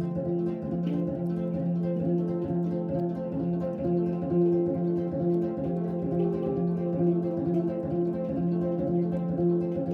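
Tonkori, the Ainu plucked string zither, playing a steady repeating pattern of plucked notes that ring over a low drone.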